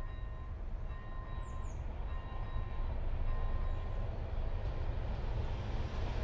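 Diesel locomotive approaching, its low engine rumble slowly growing louder. Early on a faint ringing tone pulses on and off, then fades out, and two short falling chirps come about a second and a half in.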